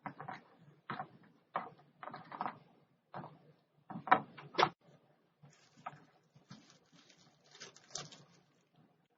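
Drawing tools tapping and scratching on paper in irregular short strokes, with a couple of sharp ticks about four seconds in, then a stretch of hissier, faster rubbing near the end.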